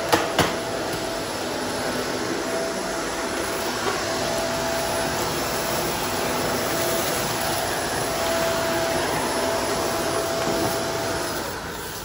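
Shark Apex upright vacuum running steadily as it picks up dirt and debris off a concrete garage floor, with two sharp clicks about half a second in. The sound drops off near the end.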